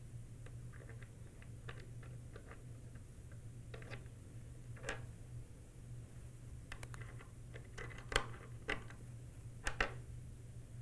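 Faint, scattered metallic clicks and taps of small metal suppressor baffles being fitted together and stacked onto the end cap by hand, with a few sharper clicks from about eight to ten seconds in.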